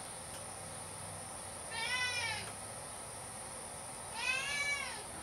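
Domestic cat meowing twice, each meow under a second long and arching up then down in pitch.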